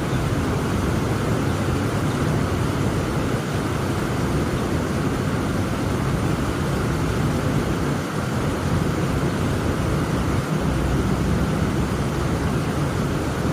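Heavy rain falling steadily, a dense, even hiss with a deep low rumble under it.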